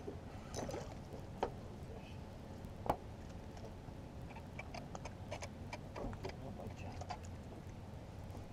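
Scattered light clicks and knocks of fishing tackle being handled aboard a small boat, over a low steady rumble of wind and water. Two sharper knocks come about a second and a half and three seconds in.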